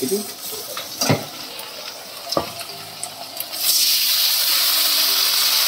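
Ground masala paste frying in hot oil with chopped onion in an aluminium kadai, sizzling, with two sharp knocks. A little past halfway the sizzle turns suddenly much louder and hissier and holds steady.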